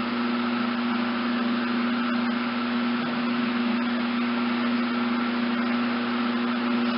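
Shower water running steadily onto a tiled floor, a constant hiss with a steady low hum underneath.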